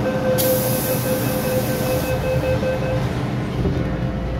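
MTR M-Train at the platform: a rapid pulsing warning tone, typical of the door-closing chime, sounds for about three seconds, with a burst of hiss over it for about a second and a half. Near the end a low rumble comes up as the train starts to pull away.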